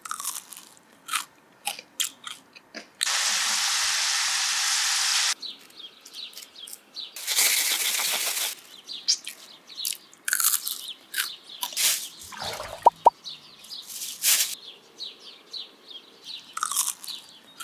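Cheese-powdered French fries in a plastic bag: crinkling plastic and crisp crunches and clicks. There are two longer stretches of steady shaking noise, one from about three to five seconds in and one around eight seconds in.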